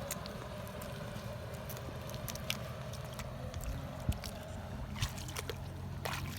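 Boat engine running steadily at a low hum, with scattered light clicks.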